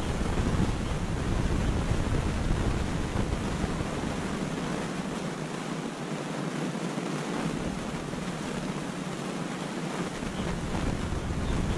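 Wind blowing over the camera microphone: a steady rushing noise with a low buffeting rumble that drops away for several seconds in the middle and returns near the end.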